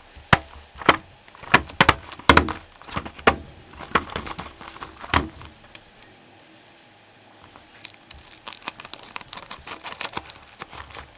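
A toy's box and packaging being handled and opened. First a run of sharp clicks and knocks for about five seconds, then softer, quicker clicks and crinkling near the end.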